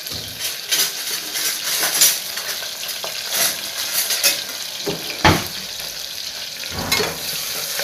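Sliced red onions frying in hot oil in an aluminium pressure cooker: a steady sizzle with frequent sharp crackles, two louder pops in the second half.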